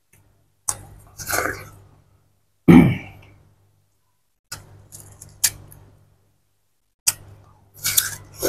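Watermelon being bitten and chewed close to the microphone: crisp crunching bites in four clusters a couple of seconds apart, the loudest a little under three seconds in.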